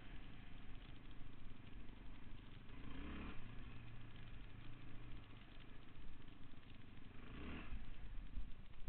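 Yamaha Raptor 660 quad's single-cylinder four-stroke engine running under way, with two brief louder surges, about three seconds in and near the end.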